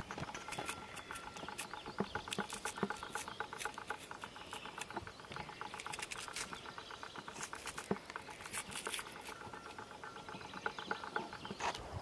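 Onion being sliced by hand against a curved iron blade, with crisp cuts and slices dropping onto a wooden board. Under the cuts runs a rapid, even ticking trill.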